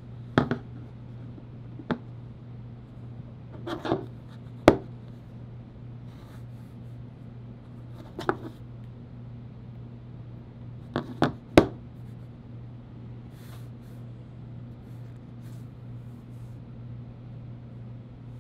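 Handling noise from smartphones being picked up, turned over and set down on a desk: a handful of short sharp taps and clicks in small clusters, the loudest about five seconds in and near the middle, over a steady low hum.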